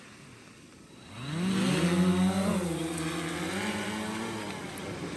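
Multirotor fishing drone's propellers spinning up for takeoff about a second in: a buzzing hum that rises in pitch, then holds and wavers as the drone climbs away. Gentle surf hiss under it before takeoff.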